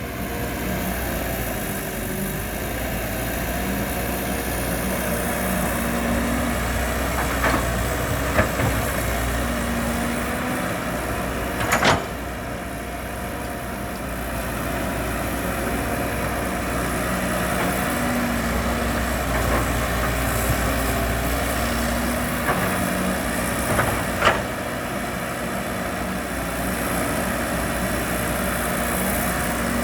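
Heavy earthmoving machinery engine running steadily with a deep rumble. A few sharp knocks break in, the loudest about twelve seconds in.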